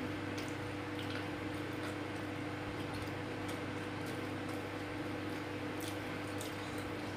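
Eating with the fingers: scattered faint clicks and soft squishes as fingers pick rice and food from a plastic plate and the mouth chews, over a steady low hum.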